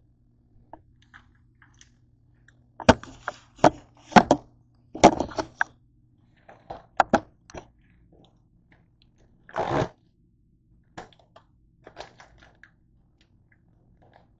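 Crinkling and crackling of a plastic deli-meat pouch being handled and opened: a run of sharp crinkly bursts over several seconds, with a longer rustle just before the two-thirds mark. A low steady hum runs underneath.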